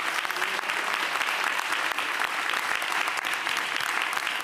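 A crowd applauding steadily, many hands clapping at once.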